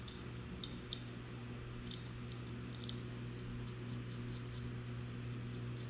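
Small hard clicks and taps of drone-frame standoffs and screws being handled and fitted. A few sharp clicks come in the first second, then a quick run of light ticks in the second half, over a steady low hum.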